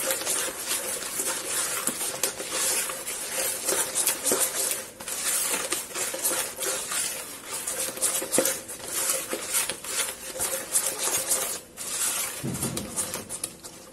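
Silicone spatula stirring a thin egg, sugar and milk batter in a plastic bowl: a quick, continuous run of scrapes and small clicks against the bowl.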